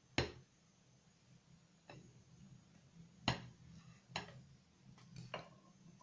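Kitchen knife clicking and tapping against a ceramic plate as a cake is cut and a slice is lifted: a handful of short sharp knocks, the loudest just after the start and about three seconds in, with softer ones around two, four and five seconds.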